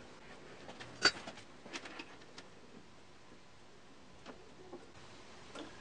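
A few faint, sharp clicks and ticks from handling fine motor winding wires and a multimeter probe, the loudest click about a second in.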